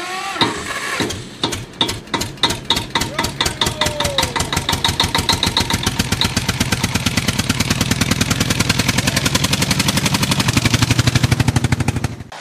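An engine starting up and running faster. Its regular beats speed up steadily from slow, separate knocks to a quick, even run, then cut off suddenly.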